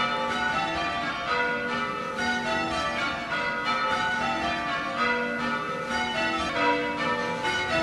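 Church tower bells change ringing: a ring of bells struck one after another in a steady, even sequence, each stroke ringing on into the next.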